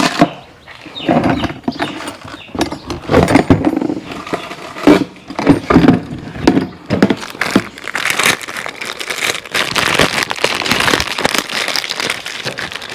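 Plastic Cup-A-Water poultry drinker being handled and assembled: repeated knocks, clicks and scrapes of the hard plastic bucket, lid and fittings, busier and denser in the second half.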